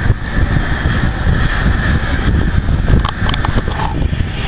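Wind rumbling on the microphone, with a steady hiss above it and a few sharp clicks about three seconds in.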